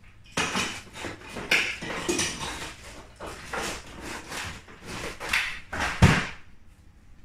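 Things being put in and shifted around in a freezer drawer: a run of irregular knocks and clatter, with a heavier thump about six seconds in.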